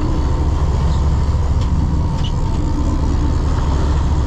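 Steady low drone of a fishing boat's engine under way, with a hiss of wind and water.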